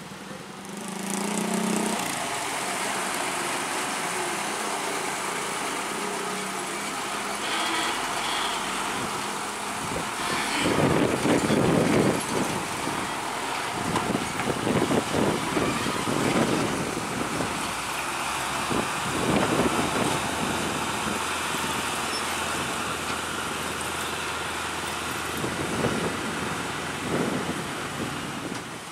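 Heavy diesel trucks crossing a railway level crossing: steady engine and road noise, with several louder swells as a loaded six-wheel dump truck works slowly over the rails.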